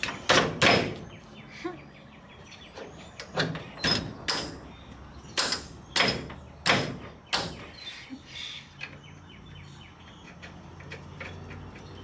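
Irregular sharp metal clanks and knocks, about ten of them, mostly in the first eight seconds: a tubular lower control arm knocking against a coilover shock's lower mount as it is worked into place.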